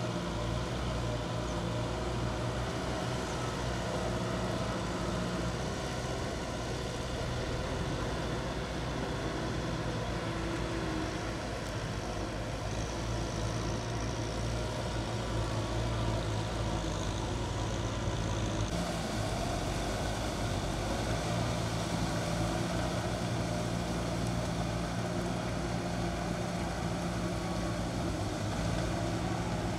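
Kubota M6040S tractor's four-cylinder diesel engine running steadily under load, pulling a rotary tiller through flooded rice-paddy mud; its low note shifts slightly a few times.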